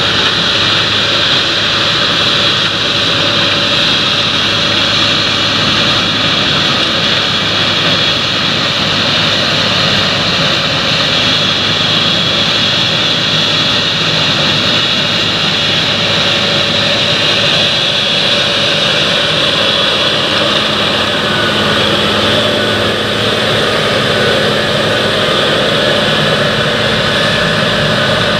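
Fendt 930 tractor running steadily under load while it pulls a power harrow and seed drill through heavy soil, with a steady high whine over the engine note.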